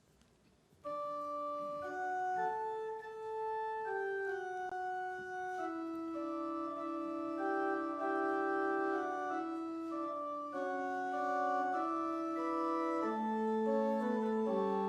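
Organ playing slow, sustained chords, starting suddenly about a second in after near silence.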